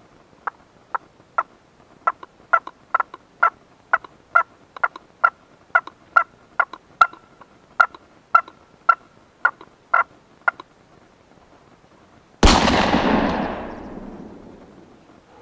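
Wild turkey clucks: about twenty short, sharp notes at an even pace of roughly two a second. About twelve seconds in, a single loud gunshot, its echo fading over a couple of seconds.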